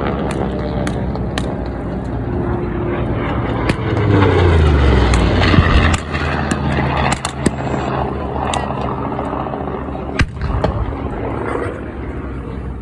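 Piston-engined warbird fighters passing low, their engine drone swelling and dropping in pitch as they go by about four to six seconds in. Scattered sharp bangs of blank gunfire and pyrotechnic explosions run through it, with a strong bang about ten seconds in.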